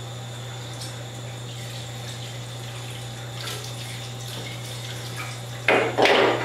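Tap water running steadily at a gentle flow into a film developing tank in a darkroom sink, washing the film. Near the end come two short, louder bursts as the tank is handled under the tap.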